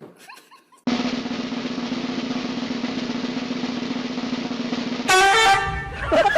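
Snare drum roll lasting about four seconds, then a loud pitched blast about five seconds in.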